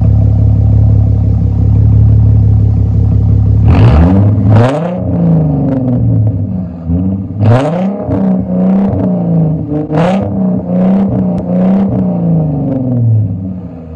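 Mercedes CLK 240's V6 engine through an aftermarket quad-tip exhaust, idling steadily and then blipped several times from about four seconds in, the pitch jumping up and falling back with each rev.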